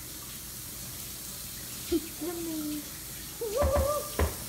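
A steady hiss, broken after about two seconds by short wordless vocal sounds that glide in pitch, the second one louder, with a couple of low thumps near the end.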